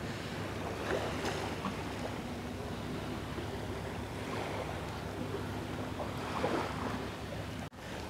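Sea waves washing onto the shore in a steady, even wash, with a brief dropout in the sound near the end.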